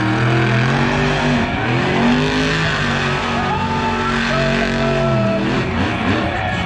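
Monster truck engines running loud and revving, their pitch rising and falling several times.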